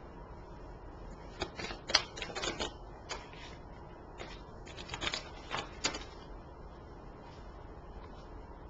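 Tarot cards being shuffled and handled by hand. Two short bursts of card rustles and snaps come about a second and a half in and again around five seconds.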